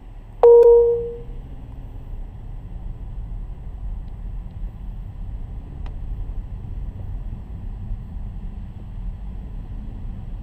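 A car horn sounds once briefly, a single steady pitch lasting under a second, about half a second in. Under it and after it runs the steady low rumble of a car driving.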